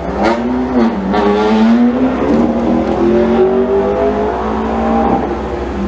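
Electric race car's motor whining as it drives. The pitch dips and rises in the first second, then climbs slowly and steadily as the car accelerates.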